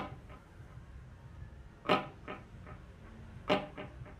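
Electric guitar struck three times through an Artec G10x 10-watt practice amp, its built-in delay set to a low level. Each strum is followed by a few fainter echo repeats.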